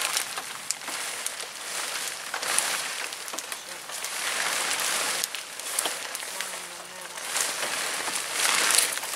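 Nylon tent fabric rustling and swishing in swells as it is lifted and pulled up, with scattered sharp crackles.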